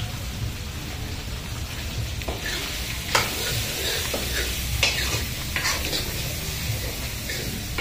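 Goat meat curry frying in a steel karahi over a gas flame, with a steady sizzle and a few short scrapes and knocks against the pan as it is stirred.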